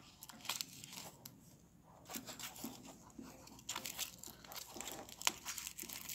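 Aluminium foil wrapping crinkling and rustling in irregular crackles as it is handled.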